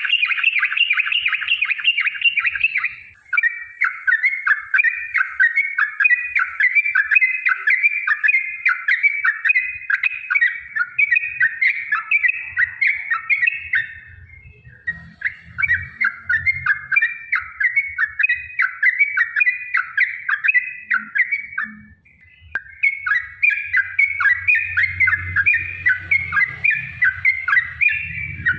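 Yellow-vented bulbul singing long runs of rapid, repeated chattering notes. The runs break off briefly three times and then start again.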